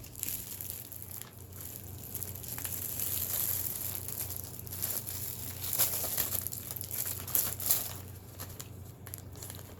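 Packaging being crinkled and handled in irregular rustles, with some tearing, as items are unwrapped.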